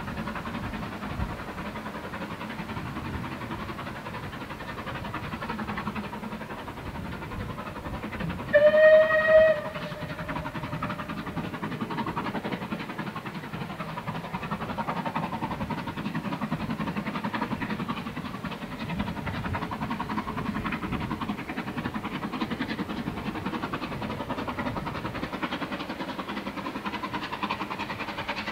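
A steam locomotive's whistle blown once, a single pitched note lasting about a second, a third of the way in. Around it, the approaching steam train gives a steady low rumble.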